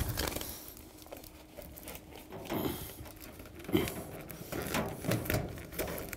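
Flexible foil accordion dryer duct crinkling in a few short bursts as it is worked by hand over the dryer's crimped exhaust outlet.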